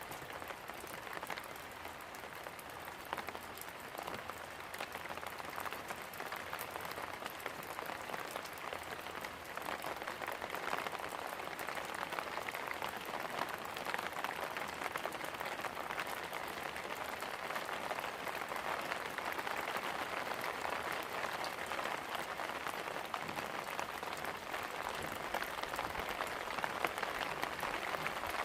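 Steady rain falling and pattering on a surface, a dense crackle of drops with no let-up.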